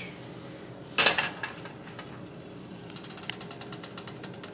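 Butter and garlic sizzling in a frying pan, with one short loud burst about a second in. In the last second and a half a fast run of even clicks, about ten a second, sounds over the sizzle.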